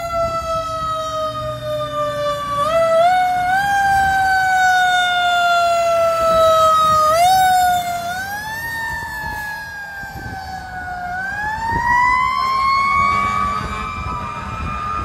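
Fire engine's siren wailing as the truck passes: the pitch is pushed up in short quick steps and slides slowly down between them. It drops in pitch and level about eight seconds in as the engine goes by, then winds back up smoothly as it heads away, over the truck's engine rumble.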